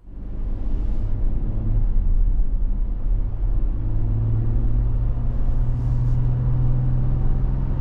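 The 2024 Toyota 4Runner's 4.0-litre V6 and road noise while driving: a steady low drone that grows a little stronger about four seconds in.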